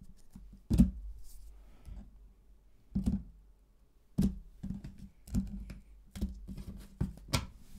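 Tarot cards being dealt and set down on a wooden tabletop: a series of sharp taps at irregular intervals.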